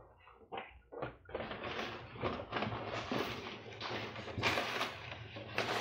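Packaging being handled: two short clicks, then about four seconds of steady rustling and crinkling.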